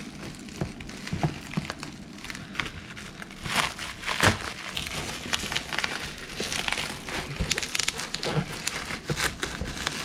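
Packaging being handled and opened by hand: irregular crinkling and rustling with sharp clicks and crackles, a few louder ones about four seconds in.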